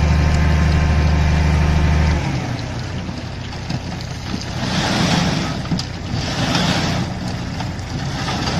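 Diesel engine of a hooklift truck running at raised revs to drive the tipping hydraulics, a steady drone that drops away about two seconds in. Then rock and gravel slide out of the tilted container onto the pile, with two louder spells of rumbling and hissing.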